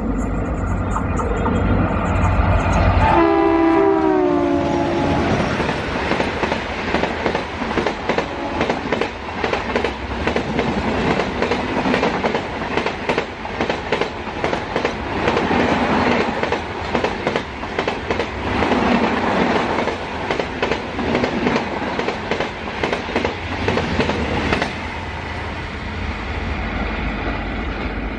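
Passing Indian Railways express train hauled by two diesel locomotives: the locomotive horn sounds about three seconds in, its chord dipping slightly in pitch, over the engines' rumble. Then the coaches pass with a rapid, continuous clatter of wheels over the rail joints until near the end, when it settles to a quieter rumble.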